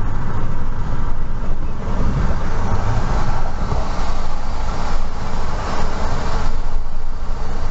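Road and engine noise of a moving car as heard from inside its cabin: a steady low rumble with a haze of tyre noise over it.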